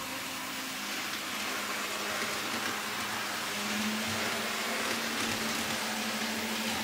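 Two N scale model locomotives running around a test loop at about half throttle: a steady rushing hiss of small motors, gears and wheels on rail, with a low hum growing stronger about halfway through.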